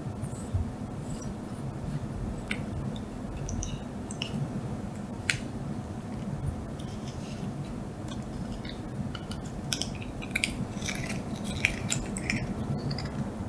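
A cat licking and eating a lickable paste treat: short wet smacks and tongue clicks, coming more often in the second half, over a steady low hum.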